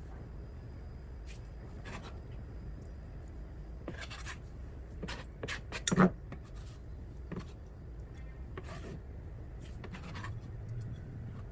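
Scattered light clicks and rubbing over a steady low hum, with a small cluster of sharper taps about five to six seconds in, the loudest one near the middle.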